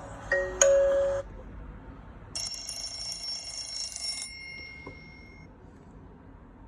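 Nokia 301 mobile phone ringtones: a melody of struck, bell-like notes ends about a second in, and after a pause a high, bright ringing tone sounds for about two seconds and fades away.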